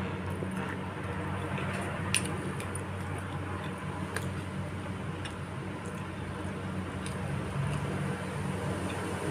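Close-up eating sounds of meatball soup with spinach: wet chewing and squishing, with scattered light clicks, the sharpest about two seconds in, over a steady low hum.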